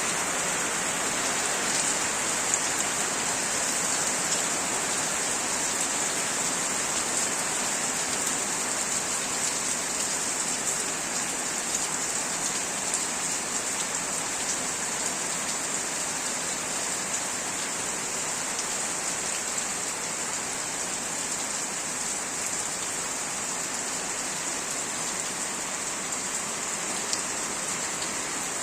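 Heavy rain falling steadily: an even hiss, with a few louder drops striking here and there.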